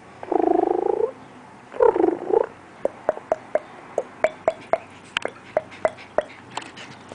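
Small Yorkshire terriers play-growling: two growls, each under a second long, then a quick run of short, sharp yips, about three a second.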